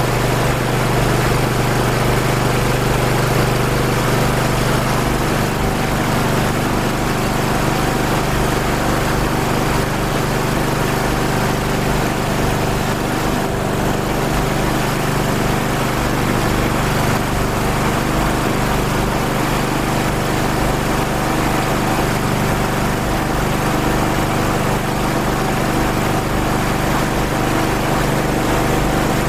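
Small engine running steadily at an even speed, its fuel shutoff valve closed and choke about halfway open, on what its makers claim is a water fuel with only 5 ml of gasoline added.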